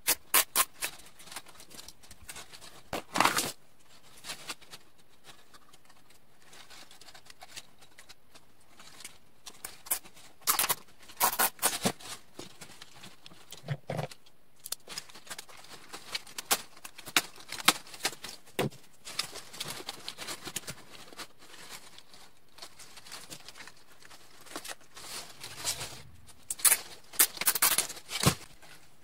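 Plastic zip ties being threaded through a plastic bin and pulled tight, with chicken wire crinkling and rattling. The sound is made of irregular short rasps, clicks and rustles, with the thickest bursts about 3 seconds in, around 11 seconds, and near the end.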